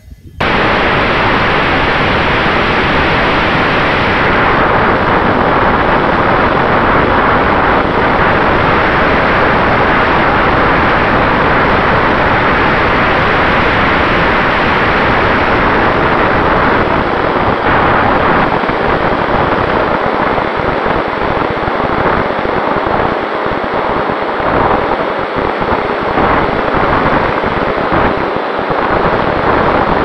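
Loud, steady rush of wind and propeller noise on the onboard microphone of a flying radio-controlled model plane, starting abruptly about half a second in, with a faint steady tone beneath it.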